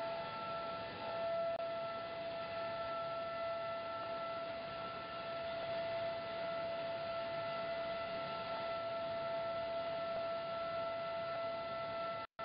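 Corrugated board production line (corrugator) running at speed: a steady high whine in two tones over an even machine rush, cutting out for a moment near the end.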